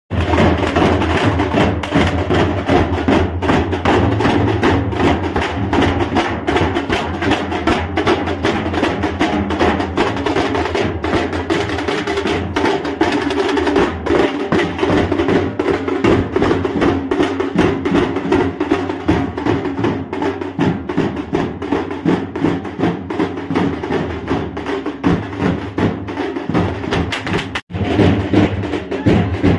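A group of large steel barrel drums beaten with sticks, playing a fast, dense rhythm together. The sound breaks off for a split second near the end, then carries on.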